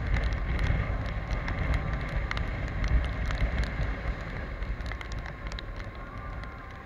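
Wind and road rush past the microphone of a Piaggio X Evo 125 scooter riding in rain, with many small raindrop ticks on the camera. The rushing slowly dies down as the scooter slows into queued traffic.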